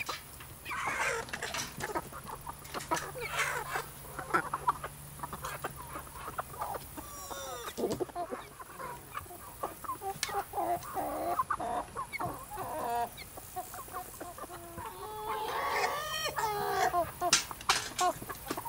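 A small flock of hens clucking and calling over one another, with scattered sharp clicks and a louder run of calls near the end.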